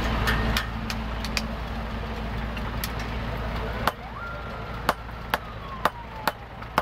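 A vehicle engine rumbles for the first four seconds and then drops away suddenly. From about four seconds in, sledgehammers strike glowing leaf-spring steel on the anvil, about two sharp blows a second.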